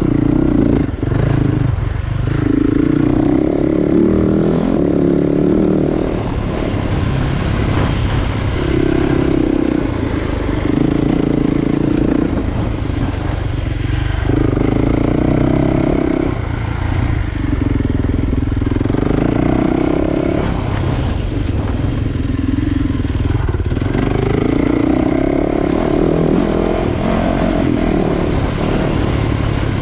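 Enduro motorcycle engine under way on a dirt track, revving up and dropping back every couple of seconds as the throttle is opened and closed.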